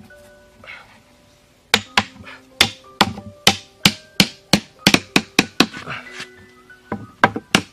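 Sharp knocks of wood on wooden stakes, an irregular run of about three a second starting nearly two seconds in, as the stakes of a trap fence are tapped into place. Background music with steady notes runs underneath.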